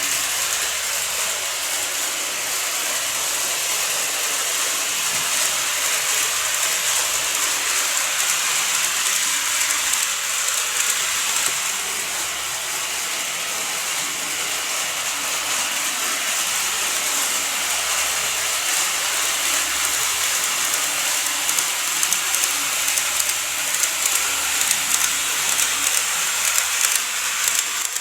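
N-gauge model train running along the layout track: a steady, high-pitched hiss of wheels and motor, with fast clicking over the rail joints that grows denser near the end.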